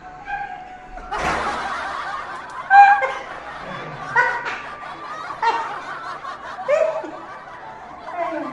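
A young woman and her elderly grandmother laughing hard, breaking out about a second in and going on in repeated bursts of snickering laughter.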